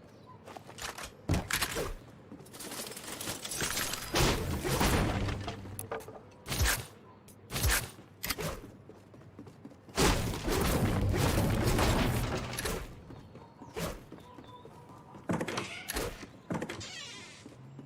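Repeated knocks, clicks and rattling of computer hardware being handled during assembly, with two longer spells of clattering and rustling about four seconds in and again around ten seconds in.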